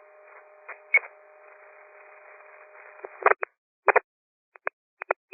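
Police radio channel open with no one talking: narrow, tinny static hiss and a faint steady hum, with a click about a second in. From about three seconds in it breaks into several short squelch bursts with dead silence between them, as transmissions are keyed and dropped.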